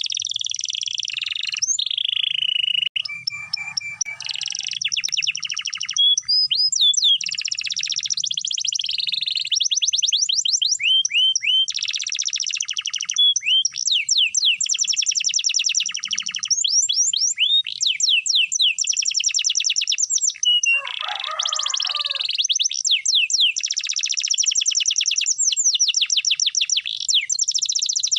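Domestic canary singing long rolled trills: fast runs of repeated high notes and quick sweeping whistles, almost without a break.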